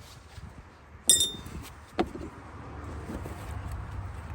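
A sharp metallic clink with a brief high ring about a second in, then a duller knock about a second later: metal-backed brake pads being handled and set down.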